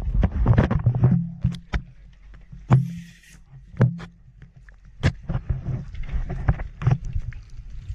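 Water splashing and sloshing around the camera at the surface, with sharp knocks of diving gear against a wooden boat ladder as a diver climbs aboard. A low steady hum runs underneath.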